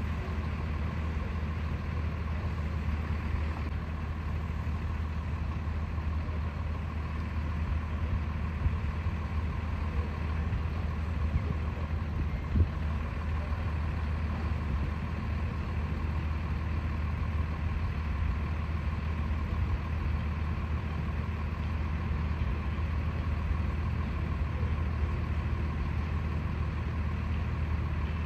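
Steady low hum of an idling engine, with a faint steady whine above it and a brief knock about twelve seconds in.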